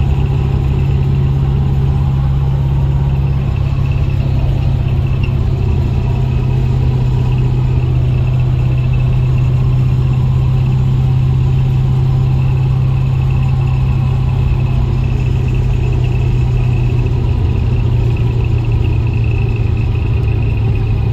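Car engine running at a steady cruise, a low drone heard from inside the moving car.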